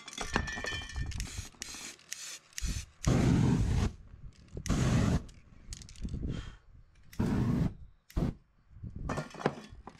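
Aerosol spray paint hissing in short bursts, then three longer, louder rushes of flame over the wet paint, about three, four and a half and seven seconds in.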